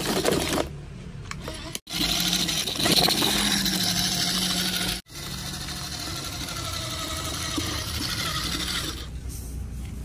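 Small electric motor and gears of a plastic RC toy dump truck whirring steadily as it drives, broken off twice by brief gaps about two and five seconds in.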